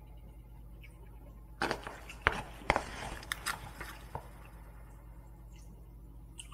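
Wooden spoon scraping and knocking against a plastic takeout container while scooping jjajang rice, a cluster of scrapes and clicks with two sharp clicks a couple of seconds in.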